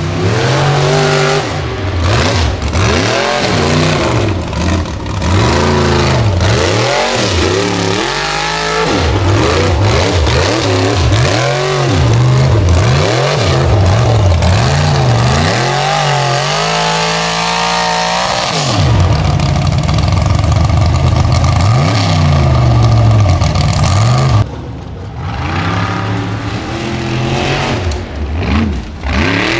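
Formula Offroad hill-climb buggy's engine revving hard on a steep sand climb, the pitch repeatedly rising and falling as the throttle is worked. About 24 seconds in the sound drops suddenly and becomes quieter and duller.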